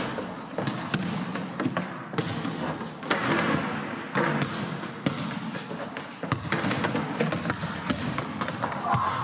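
Basketballs bouncing and thudding irregularly on a wooden sports-hall floor and walls, with running footsteps.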